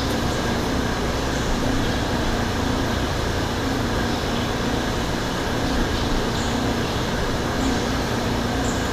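A steady mechanical hum and whir with a constant low drone, like a fan running. A few faint light clicks come in the second half.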